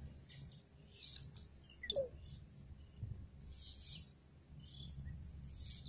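Faint scattered bird chirps over low outdoor background noise, with one sharper call about two seconds in.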